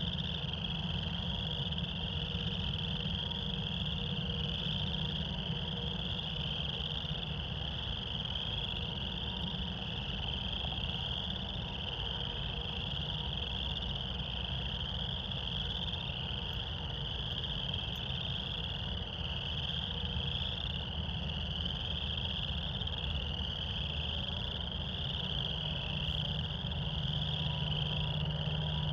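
A dense chorus of frogs calling in spring, their overlapping high-pitched calls merging into one continuous shrill band, over a low steady rumble.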